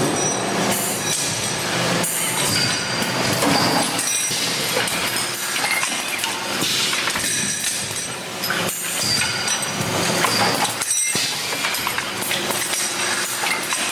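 Automatic cartridge assembly machine running: a steady mechanical clatter of rapid clicks and metallic clinks as the rotary index table and pick-and-place head cycle, over a constant motor hum.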